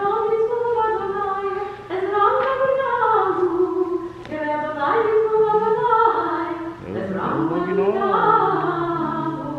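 A girl singing a prayer solo and unaccompanied: a slow melody of held notes that rise and fall, with short breaks between phrases.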